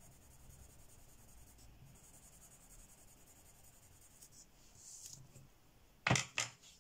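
Faint scratching of a coloured pencil shading on paper. About six seconds in, two sharp clacks as the pencil is put down and the next one taken up.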